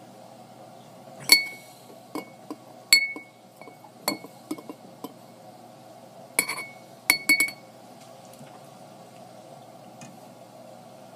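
A whiskey glass clinking with short, bright rings: about a dozen light taps in the first seven and a half seconds, as water is added to the bourbon to dilute it.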